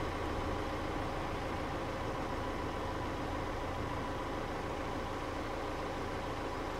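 A vehicle's engine running steadily, an even hum that holds the same pitch throughout.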